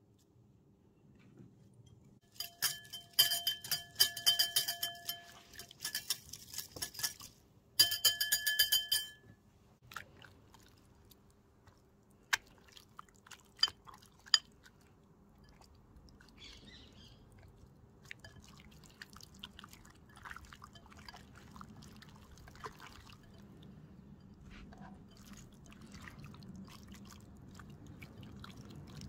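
A small glass dish clinking against a glass mixing bowl in two runs of rapid ringing taps as chopped parsley is knocked out of it. Then scattered clicks and soft squelching as a hand works raw chicken thighs into an oily marinade.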